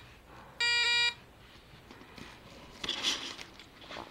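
A homemade 555-timer laser trip-line alarm sounds one buzzy electronic beep of about half a second as its beam is broken. A soft rustle follows about three seconds in.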